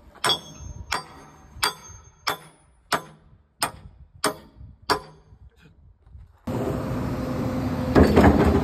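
Hammer striking steel on an excavator bucket's tooth as a broken tooth is replaced: eight sharp, ringing metallic blows about two-thirds of a second apart. About six and a half seconds in, the excavator's engine starts to be heard running steadily, louder just before the end.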